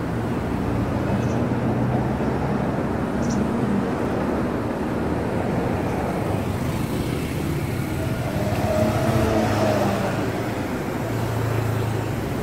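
Road traffic of cars and motorbikes, a steady run of engine hum and tyre noise, with one vehicle passing louder about nine seconds in.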